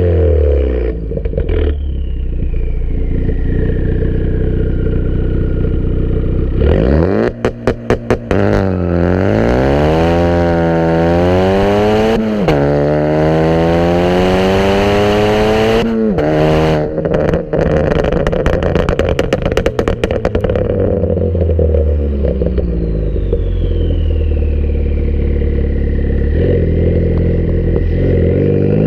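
Ford Focus ST with a catless downpipe and deleted muffler, idling, then revved up and held for several seconds before dropping off. Sharp exhaust pops and crackles come just before the rev and again in a burst as the revs fall.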